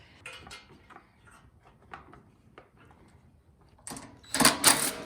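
Hand tools working on a snowblower's carburetor area: faint clicks and scrapes, then a loud clattering of metal tools about four seconds in.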